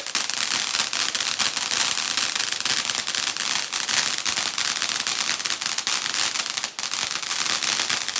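A 200-shot fireworks cake firing in rapid succession: a loud, dense, continuous stream of sharp pops and crackles.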